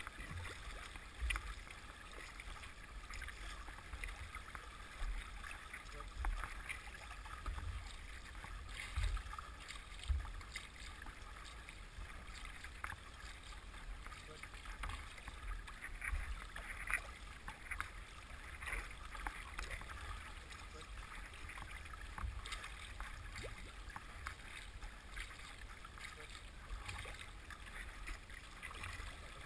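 Water rushing and splashing along the hull of a paddled boat moving through river current, with many small splashes, and occasional low thumps.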